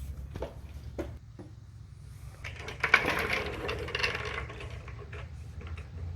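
Metal clicks and clatter of a floor jack and jack stand being worked under a vehicle, with a denser scraping rattle about two and a half seconds in, loudest around the three-second mark.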